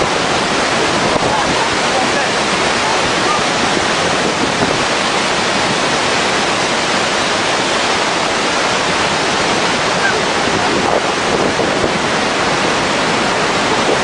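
Large waterfall pouring over its lip right beside the microphone: a loud, steady rush of falling water with no breaks.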